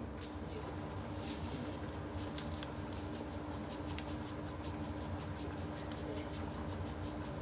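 Food frying in hot oil in a pot, crackling and popping several times a second over a steady hum.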